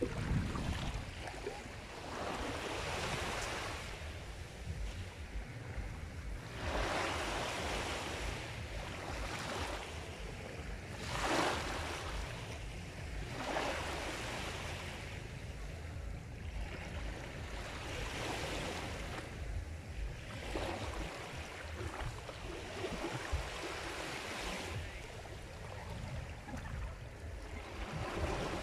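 Sea surf: waves breaking and washing in one after another every few seconds over a steady low rumble, with one sharper crash about a third of the way through.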